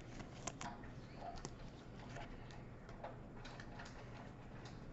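Faint handling noise of a trading card and a clear plastic card sleeve: soft rustling with a few light ticks and clicks scattered through.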